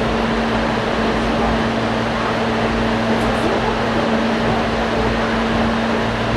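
Cabin noise of an Ichibata Electric Railway 5000-series electric train under way: a steady rumble from the wheels and running gear with a constant low hum.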